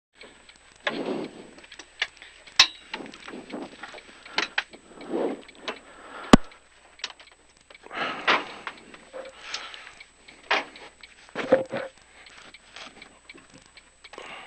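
Irregular knocks, clicks and rustles, with two sharp clicks about two and a half and six seconds in.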